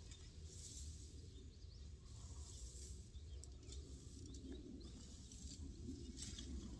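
Quiet rural outdoor ambience: a low steady rumble with a few faint bird chirps.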